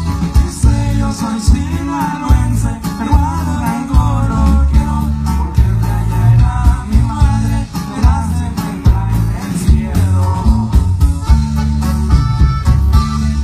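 Live band music from an accordion lead over electric guitars, bass and drums, with a steady beat and a walking bass line.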